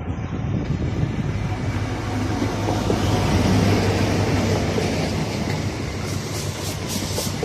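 GWR High Speed Train passing close along the platform: the Class 43 diesel power car's engine hums steadily, loudest about three and a half seconds in as it goes by. Near the end the coaches' wheels start clicking over rail joints, about four clicks a second.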